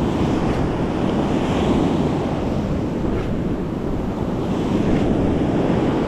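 Ocean surf breaking and washing up a sandy beach, a loud steady rush of water, with wind buffeting the microphone.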